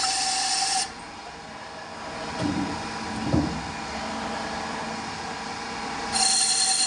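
CNC lathe running a program dry, with no cutting: a steady machine hum and high hiss that cut out about a second in and come back near the end, with two short low clunks in between as the machine moves.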